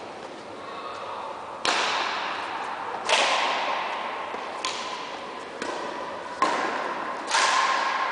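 Badminton rally: a run of sharp racquet strikes on a shuttlecock, about six, a second or so apart, each ringing out in the long echo of a large sports hall.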